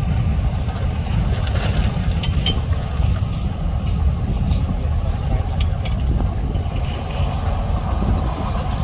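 Heavy diesel earthmoving machinery, a dump truck or bulldozer engine, running steadily with a deep rumble. A few light clicks come through about two seconds in and again near six seconds.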